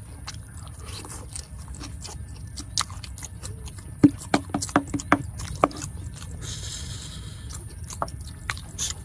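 Close-up eating sounds: metal spoons scraping and tapping on a paper-wrapped heap of ketoprak, with chewing and many short sharp clicks. A few brief mouth sounds come about four to six seconds in.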